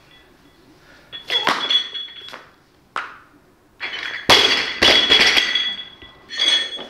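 Loaded Olympic barbell with bumper plates clinking as the lifter handles it. About four seconds in it is dropped onto the lifting platform, landing with a heavy crash, and the plates and collars rattle and ring afterwards.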